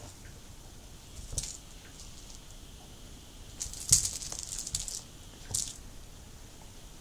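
Hard slotted ball toy clattering and rattling as a puppy paws and chews at it on the carpet: one brief rattle, then a burst of clattering about four seconds in, and another short rattle a little later.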